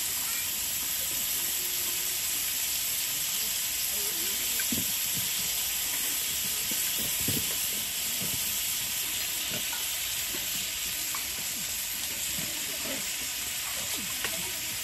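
Food sizzling in a hot pan with a steady hiss, with light scrapes and taps from a utensil stirring it.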